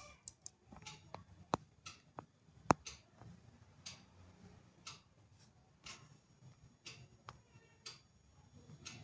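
Light, irregular taps and clicks on a tablet touchscreen, unevenly spaced and sometimes several a second, the sharpest one nearly three seconds in.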